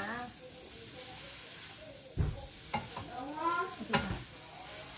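Food frying in a pan with a steady sizzle while it is stirred with a utensil, which scrapes around the pan and knocks against it twice, about two seconds in and near the end.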